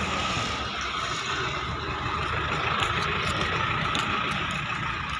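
Road traffic: a car and a minibus driving along the road close by, a steady traffic noise.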